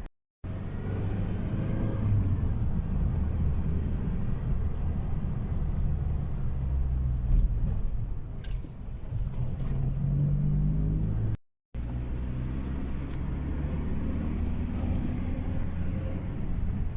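Vehicle engine and road noise while driving: a steady low rumble, with the engine note rising a little around ten seconds in. The sound cuts out briefly at the very start and again about eleven seconds in.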